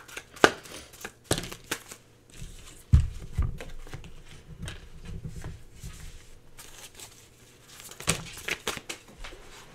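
Oracle cards being handled: sharp card flicks and snaps, and cards sliding against each other. About three seconds in there is a run of dull knocks on the tabletop, and more card clicks come near the end.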